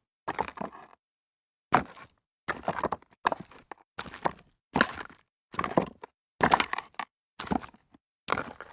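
Footsteps walking on rocks: each step a crunching scrape of stones underfoot, a little more than one step a second, with a short pause about a second in and dead silence between steps.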